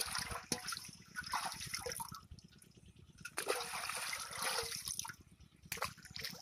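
Water sloshing, dripping and splashing in a large metal pot as hands grope through it to grab small live fish. Near the end, a sharp splash as a fish is tossed into the pond.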